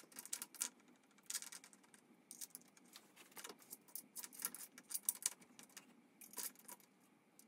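Small metal bolts clinking and clicking as they are handled and started by hand into a new water pump on a Toyota 2ZZ-GE engine: light, irregular metallic ticks.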